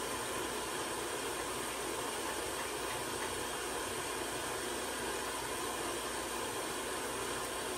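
Steady hiss of background room noise, unchanging, with no distinct events.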